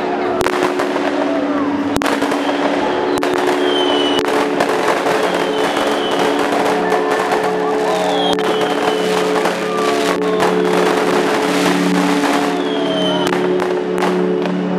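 Fireworks bursting in quick succession, with sharp bangs and crackles and several short falling whistles, over a steady droning music chord.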